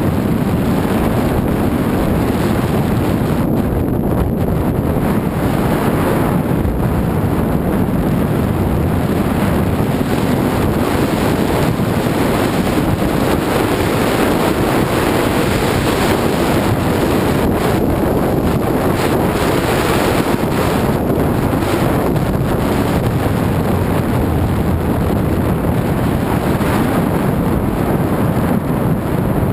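Steady rush of wind buffeting a skier's camera microphone during a downhill run on groomed snow.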